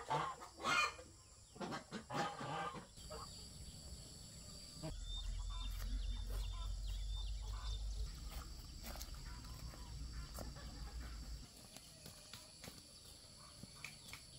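Chickens clucking, with a few louder calls in the first three seconds. A low rumble sets in about five seconds in and stops a few seconds before the end.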